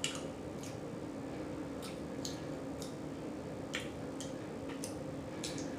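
A person chewing a chicken wing dipped in ranch with the mouth close to the microphone: wet lip smacks and clicks at irregular intervals, roughly one a second.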